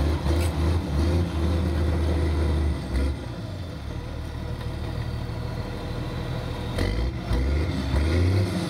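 Case 1450 crawler dozer's Cummins diesel engine running, loud for about three seconds, then dropping to a lower steady level before picking up again near the end. A few short metallic clanks sound near the start and again about seven seconds in.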